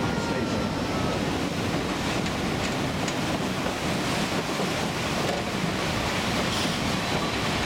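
Steady rush of a fast white-water mountain creek, mixed with the running noise of the narrow-gauge train and wind on the microphone.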